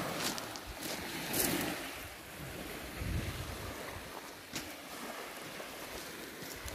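Small waves lapping on a pebble shore, with gusts of wind rumbling on the microphone.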